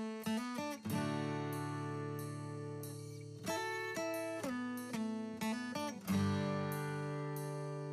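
Instrumental intro music: a run of short plucked notes, with a chord left ringing about a second in and another at about six seconds.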